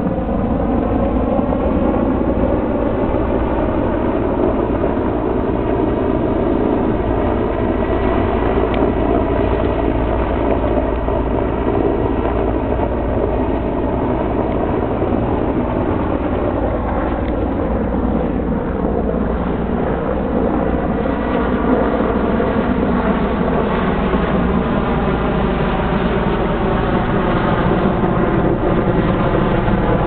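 Erickson S-64 Air-Crane firefighting helicopter flying overhead: a steady, loud drone of its turbines and rotors, with a pitch that slowly shifts as the aircraft moves.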